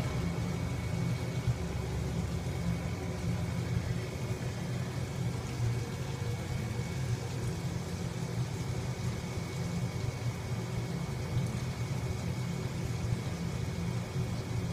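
Steady low rumble with a faint high tone over it, with no sharp sounds.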